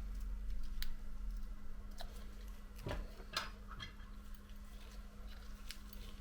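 Small, scattered clicks and taps of a repair tool and tiny parts being handled and fitted inside an opened iPhone, a few quick ones clustered near the middle, over a steady low hum.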